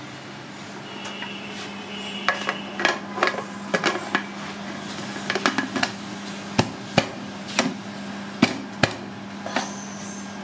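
Pressure cooker lid being fitted and locked onto the pot, giving a run of sharp metal clicks and clacks as the lid and handles knock together, over a steady low hum.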